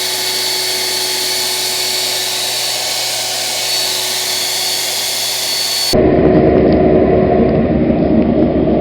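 Central vacuum cleaner power unit running: a steady whine over a rush of air. About six seconds in it changes abruptly to a louder, lower rushing sound.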